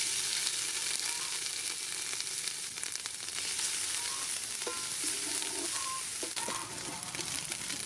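Pounded kroeung curry paste frying in hot soybean oil in an aluminium pot, with a steady sizzle as it is stirred with a wooden ladle.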